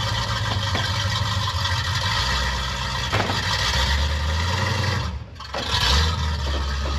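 1970 Dodge Super Bee's big-block V8 running at low revs as the car creeps up onto a flatbed trailer, the engine note rising about four seconds in. There is a short dip in the sound just after five seconds.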